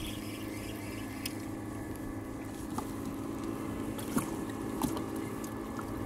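Fishing kayak under way while trolling on calm sea, with a steady low hum and water against the hull. A few light knocks and ticks come through, loudest about four seconds in.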